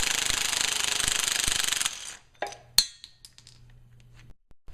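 Big impact wrench hammering on the puller bolt of a harmonic balancer puller, then stopping about two seconds in. A few sharp metal clinks follow.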